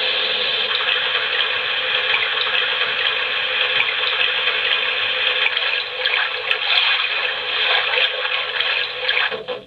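Graco Everyway Soother baby swing's built-in speaker playing a steady rushing, running-water soothing sound, which cuts off abruptly near the end.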